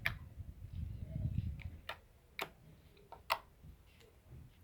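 Homemade slime being pressed and squeezed in the hand, giving four or five sharp, irregular clicks and pops, with soft handling rustle in the first second or so.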